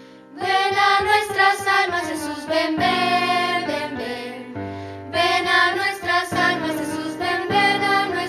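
Children's voices singing together as a choir, a slow Christmas novena song in two sung phrases with a short break a little past the middle.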